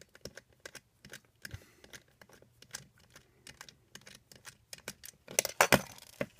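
Small irregular clicks of a precision screwdriver working a tiny screw out of a plastic remote-control housing, then a few louder knocks about five and a half seconds in as the screwdriver is set down on the wooden table and the remote is turned over.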